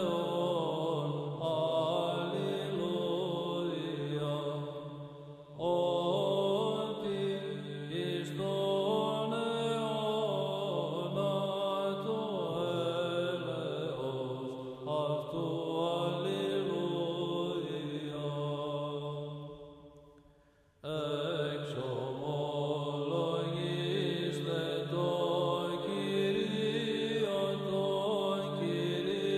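Background music of chanting voices over a steady low drone. It fades out about five seconds in and again near twenty seconds, each time starting again abruptly.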